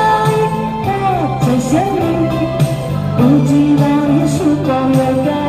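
A woman singing a Chinese pop ballad through a microphone and amplifier, her voice gliding between held notes over steady backing music.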